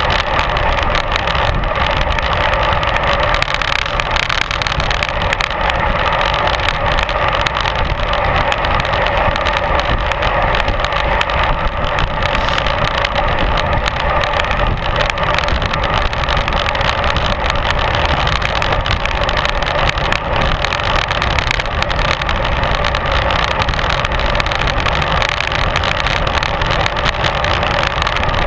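Steady wind rush over a bike-mounted action camera's microphone, mixed with the rumble of road-bike tyres on tarmac, while riding at speed in a group.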